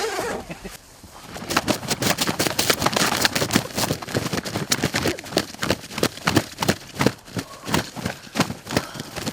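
Hurried footsteps through dry woodland ground cover: quick, crunching steps, several a second, starting about a second and a half in.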